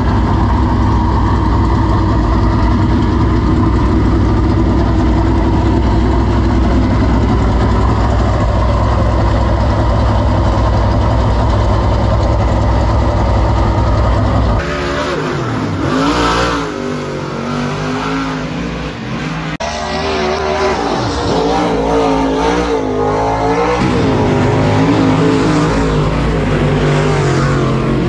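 A dirt super late model's V8 idling steadily at close range. After a sudden cut about halfway, race car engines rise and fall in pitch as the cars run on the dirt track.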